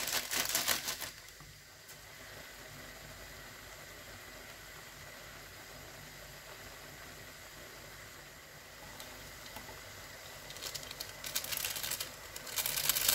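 Plastic seasoning sachet crinkling as it is squeezed out over the noodles, then a steady low hiss of the noodles simmering in a shallow pan. Near the end comes more crinkling and rustling of plastic sachets.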